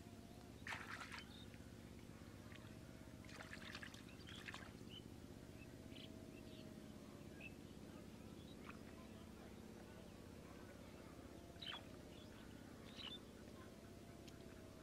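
Near silence: a faint low steady hum, with a few brief soft splashes of shallow muddy water stirred by a hand in the first few seconds, and a few faint short high chirps later on.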